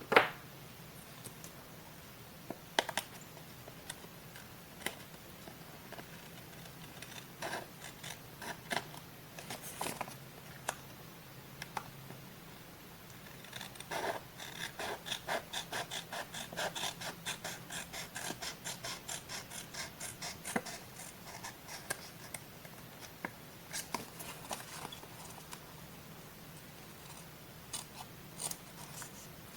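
Scissors cutting paper: a sharp tap at the start and scattered single snips and paper clicks, then a run of quick, even snips, about three or four a second, for some seven seconds in the middle.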